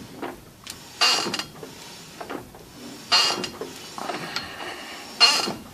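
Three short metallic creaks about two seconds apart, from hand work on the Lada Niva's propeller shaft. Its universal joint (cross) is suspected of being the source of the squeak heard while driving.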